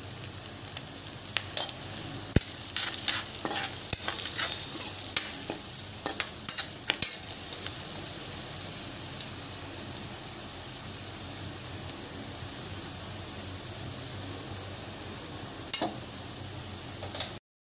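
Spice masala with green chillies sizzling in hot oil in a metal kadai, with metal spoons clinking and scraping against the pan many times in the first seven seconds and twice more near the end. The sound cuts off suddenly just before the end.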